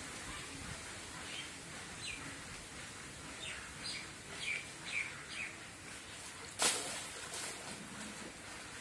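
Small birds chirping, a string of short high calls through the middle, over a steady outdoor hiss; about two-thirds of the way through comes a single brief sharp noise.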